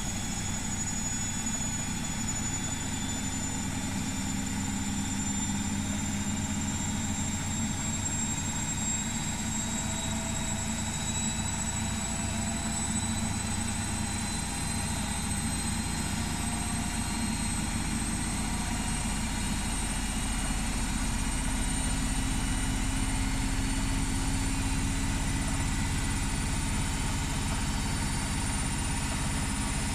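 Washing machine in its spin cycle with a heavy blanket load: the drum hums steadily while the motor's high whine rises slowly in pitch, the drum picking up speed toward full spin.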